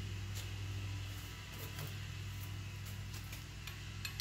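Faint light clicks and taps of a cam bearing installation tool being handled and fitted inside an aluminium LS engine block, over a steady low hum. One click near the end is a little louder.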